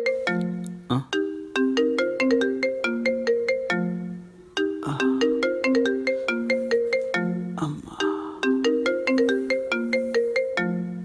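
Mobile phone ringing with a melodic ringtone: a short tune of clear plucked-sounding notes that repeats about three times, with a brief break between each phrase.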